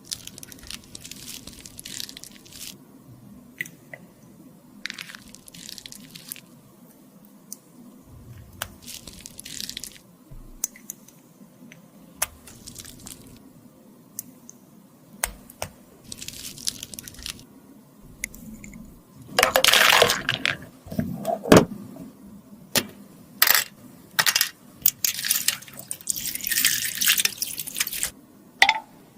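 Close-up handling noises from repairing cosmetics: short scraping or rubbing strokes and light clicks and taps of tools and lipstick cases. A louder, busier stretch of scraping and knocks comes about two-thirds of the way through.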